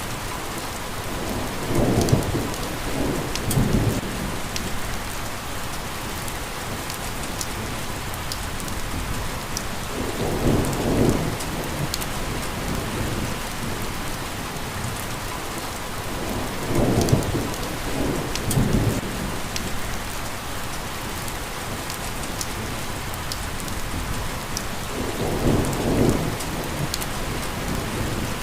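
Steady rain pattering, with a low rumble swelling up about every eight seconds, four times in all.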